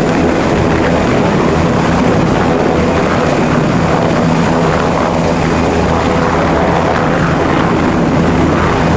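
Air ambulance helicopter at low hover, its rotor and turbine running steadily, with a high, steady whine over the rotor noise.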